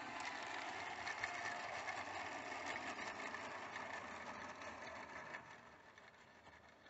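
A 16mm-scale garden railway locomotive hauling a rake of tipper wagons: its motor and gears whirring and the wheels clicking and rattling along the track. It fades away about five seconds in as the train runs off.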